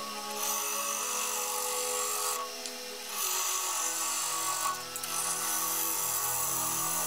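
Turning chisel cutting into a spinning ash vase on a wood lathe, hollowing the centre: a steady scraping hiss of the tool shaving the wood, breaking off briefly twice as the tool is eased off, over the steady hum of the running lathe.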